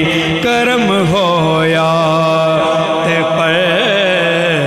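A man singing a Punjabi devotional naat into a microphone, holding long notes with winding ornaments.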